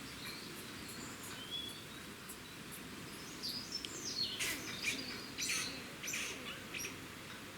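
Grey squirrels calling in a tree: short high squeaks and rasping chirps, clustered about halfway through, over a background of outdoor hiss and birdsong. The calls go with squirrels competing in the mating season.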